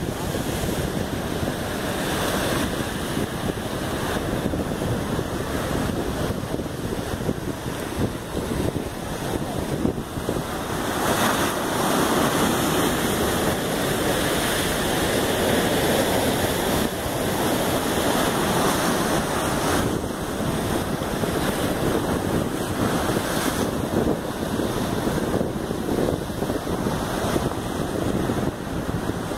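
Heavy ocean surf breaking and washing in foam around rocks, a steady rushing that grows a little louder for several seconds midway through, with wind buffeting the microphone.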